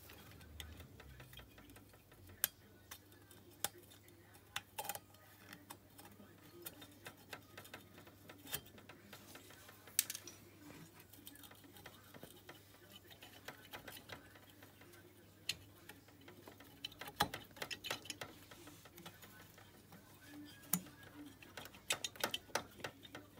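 Scattered small metallic clicks and taps of a cylinder barrel being worked down over a piston, its piston rings squeezed in by hand to enter the bore. The clicks are faint and irregular, coming thicker in the last few seconds.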